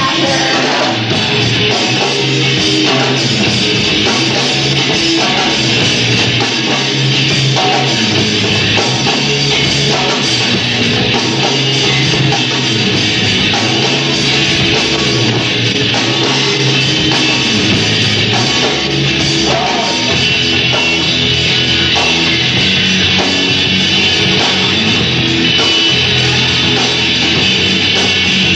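Rock band playing live: electric guitars, bass and drum kit in a loud, steady passage with no sung words picked out.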